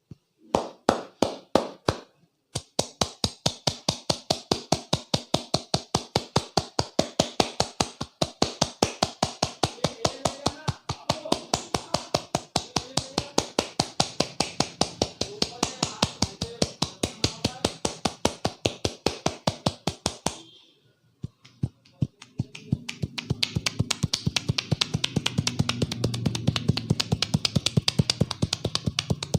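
A barber's hands striking the head in quick rhythmic percussion strokes during an Indian head massage, about four or five sharp slaps a second. The strikes break off for about a second near the end and then resume.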